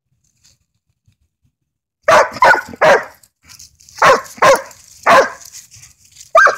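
Yellow Labrador retriever barking: about seven loud barks in quick runs, starting about two seconds in after a silent stretch.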